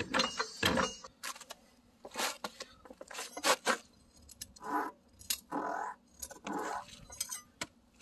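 Scattered metallic clinks and knocks, like hand tools or metal parts being handled, with a few short, duller noises around the middle.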